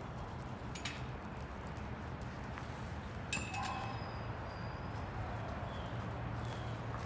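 A couple of sharp metallic clinks, one about a second in and a louder one past the middle, over a steady low hum, with a few short high chirps after the louder clink.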